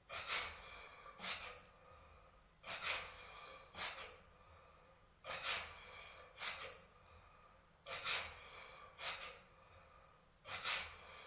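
Cotswold Heritage Cyclops hypocycloidal model steam engine running slowly, its exhaust giving pairs of soft hissing puffs, a pair about every two and a half seconds. The sound is slowed down along with the slow-motion footage.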